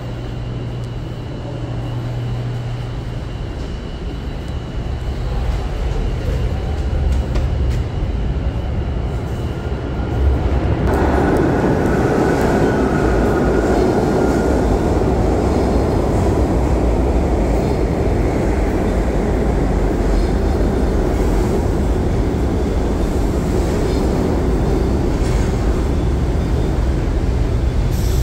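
New York City subway train pulling into an underground station. A steady low station hum for about ten seconds, then a sudden loud rumble from the train that holds steady as it runs in along the platform, with a faint high squeal from the wheels early in the rumble.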